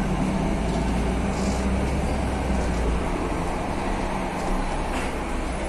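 City bus engine running, heard from inside the passenger cabin as a steady low drone that shifts about halfway through, as the bus moves slowly.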